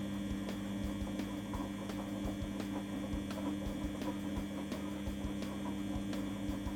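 Beko front-loading washing machine on its wash tumble: a steady motor hum with two constant tones, water and towels sloshing, and faint regular ticks.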